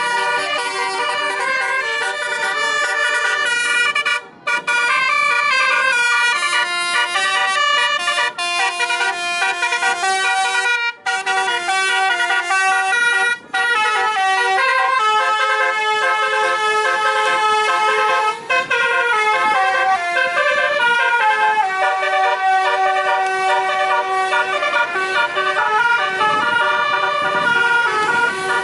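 Multi-tone telolet air horn on a car playing a tune, several horn notes sounding together and shifting in steps from note to note. It breaks off briefly about four, eleven and thirteen seconds in, then carries on.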